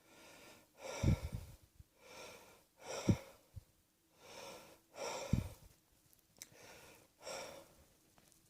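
A person breathing audibly after coughing: about eight breaths, one roughly every second, with three heavier, throaty breaths about one, three and five seconds in.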